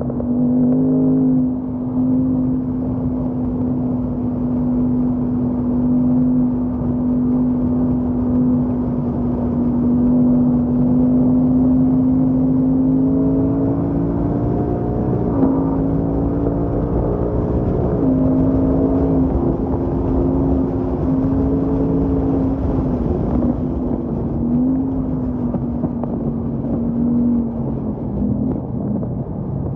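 Ford Mustang Mach 1's 5.0-litre V8 pulling hard at track speed, heard inside the cabin over tyre and road noise. The engine note holds steady, climbs gradually through the middle with a couple of sudden pitch changes, then wavers and falls off near the end.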